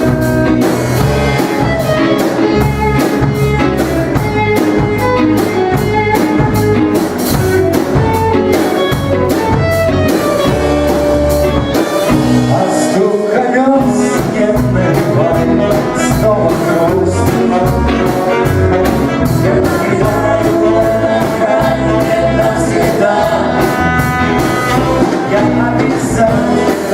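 Rock band playing an instrumental break live, with drums, bass and a lead melody line over them.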